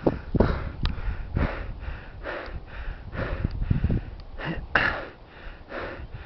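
A hiker's heavy, rapid breathing, short breaths about twice a second, the sound of someone out of breath after a hard climb.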